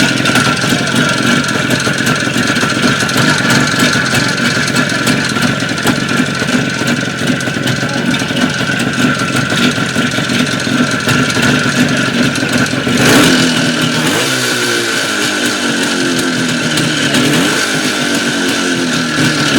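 IZh Jupiter-5 motorcycle's two-stroke twin-cylinder engine running, with the knock it is being recorded for. About two-thirds of the way through, the throttle is blipped once and the revs then sag and recover.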